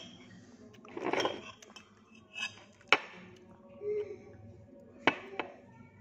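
A metal spoon scraping and clinking against a dish while eating, with a few sharp clinks about three seconds in and twice just after five seconds.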